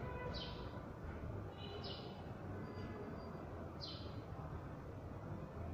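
A bird calling outdoors: three short, high, falling chirps about two seconds apart, over steady low background noise.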